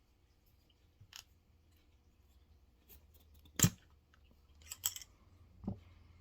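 A few sharp clicks and knocks of metal hardware being handled: a cleaning rod and jag tapping against a revolver's cylinder as patches are pushed through the chambers. The loudest knock comes a little past halfway, and a quick pair of clicks follows about a second later.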